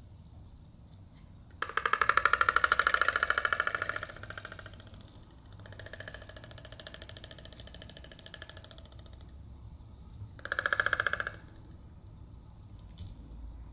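Oriental storks bill-clattering: the mandibles are struck together in rapid rattling bouts, a loud one of a couple of seconds, a softer longer one, then a short loud one near the end. Adult storks have a reduced syrinx and clatter their bills like this to communicate, and the sound carries far.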